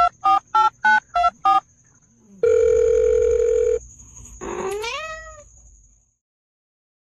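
Phone keypad beeps at about three a second, each a little different in pitch, stopping about a second and a half in. Then a steady telephone tone for just over a second, and a cat meows once with a rising pitch.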